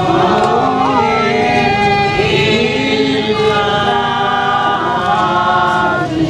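A group of voices singing a slow hymn together, holding long notes that step from pitch to pitch.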